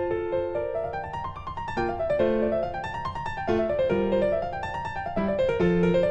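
Background piano music: quick rising and falling runs of notes over a low repeating bass.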